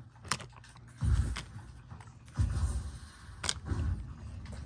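Plastic toy playset being handled: a few sharp clicks, and two short, low rumbling bumps about a second and two and a half seconds in.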